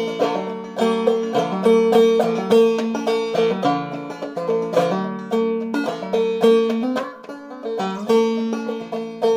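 Five-string banjo played clawhammer style, tuned low, picking out a lively old-time melody note by note over a ringing drone string.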